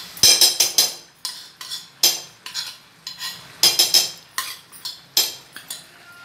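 Metal spoon scraping and knocking against a small metal bowl to get out thick sauce, a series of sharp clinks in several quick clusters.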